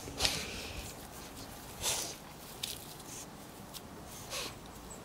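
Pugs sniffing and snuffling with their noses: three short breathy bursts about a second and a half apart, with fainter sniffs in between.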